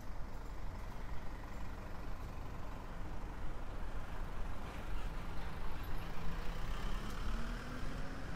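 Road traffic noise, with one vehicle's engine rising steadily in pitch as it accelerates from about five seconds in.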